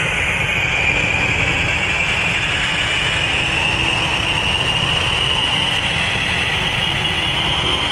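Homemade can-built turbojet engine running with flame at the exhaust: a steady jet roar with a high whine that slowly rises in pitch.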